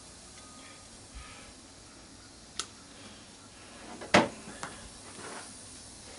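Handling noise from hand tools: a light click, then a sharp knock about four seconds in with a smaller one just after, as wire cutters and a cut-off power plug are set down.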